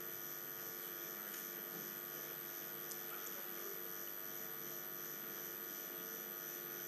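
Steady electrical hum over a faint even hiss, with no distinct events.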